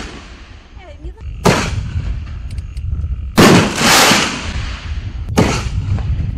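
4-inch aerial canister shells booming: three loud reports, about a second and a half, three and a half and five and a half seconds in. Each trails off in a long rumble, and the middle one is the loudest.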